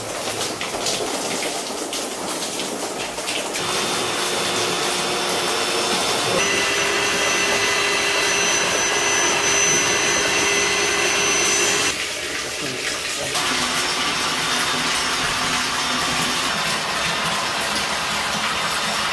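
Water pouring in a strong stream from a pipe into a half-filled inflatable paddling pool, splashing steadily. For much of the time an electric motor's steady whine runs with it, dropping out briefly about two-thirds of the way through.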